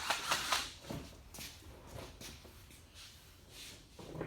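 Rapid scraping strokes on a fiberglass fender, about eight a second, stopping under a second in, then scattered softer scrapes and knocks of work on the panel.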